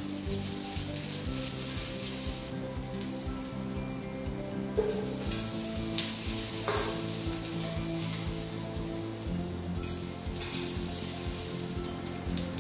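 Garlic, ginger and then sliced onion sizzling in sesame oil in a hammered nitrided-iron Peking wok, stirred and scraped with a metal spatula, with a few sharp knocks of the spatula on the wok, the loudest about two-thirds through. Soft background music with held notes underneath.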